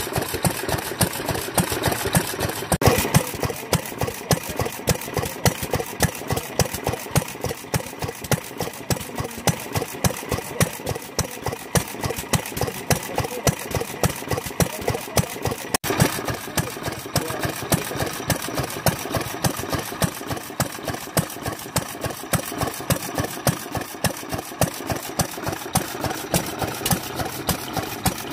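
Vintage BEST stationary kerosene engine (Japanese single-cylinder farm engine) running steadily with a regular, even firing beat.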